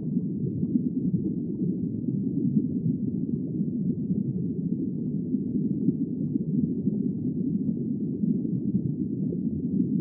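Steady, muffled low underwater rumble, a constant deep wash with no distinct calls or clicks.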